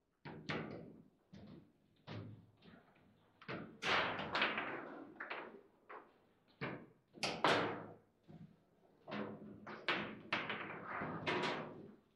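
Table football (foosball) table in play: irregular sharp knocks and clacks of the ball and rods against the plastic figures and table walls. The loudest runs of knocks come about four seconds in, around seven and a half seconds, and again toward the end.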